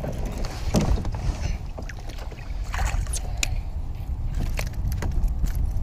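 Wind rumbling on the microphone and water moving against a fishing kayak's hull, with several short, light knocks and clicks scattered through.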